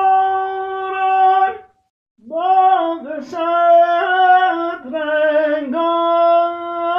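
A solo voice singing Persian verse, unaccompanied, in long held notes with small ornaments. It breaks off briefly about two seconds in, then carries on.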